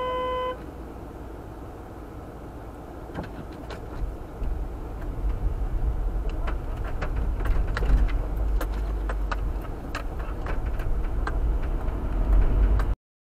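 A car horn's steady blast stops about half a second in. Then the car's engine runs, and its tyres crackle and crunch over packed snow as it starts rolling, getting louder from about four seconds in. The sound cuts off abruptly near the end.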